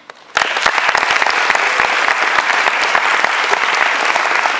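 Audience applauding, a dense run of many hands clapping that starts about half a second in and cuts off suddenly at the end.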